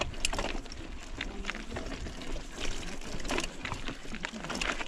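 Mountain bike rolling over rough ground: irregular clicks and rattles over a steady hiss of tyres and wind.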